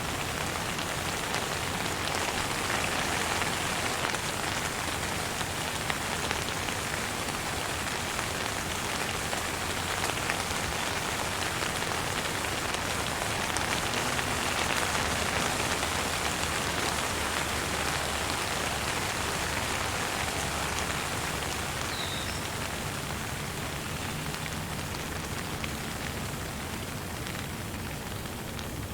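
Steady rain falling, an even patter without a break.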